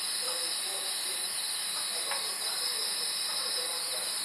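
Night insects singing steadily: a continuous high-pitched shrill with a quicker pulsing chirp a little lower down.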